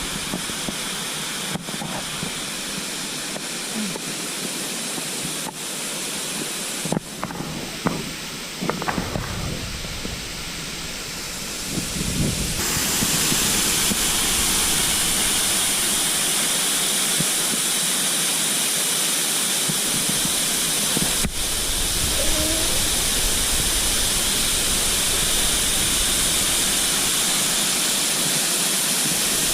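Waterfall rushing steadily, a constant hiss of falling water. About halfway through it suddenly becomes louder and brighter, and stays so.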